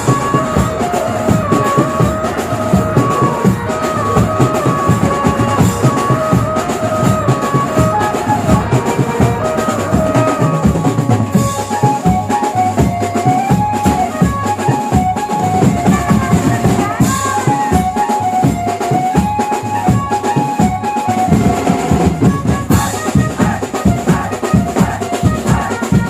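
Banjo-party band music: a melody line moving in steps over steady drumming.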